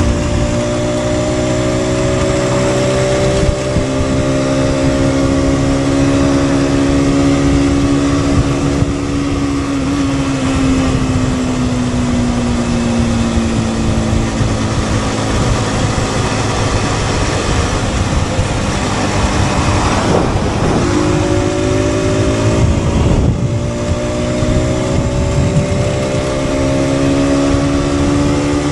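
Aprilia RS 125's single-cylinder four-stroke engine running under way, its note sinking slowly about a third of the way in. About two-thirds of the way in the note breaks up briefly, then picks up again and climbs gently.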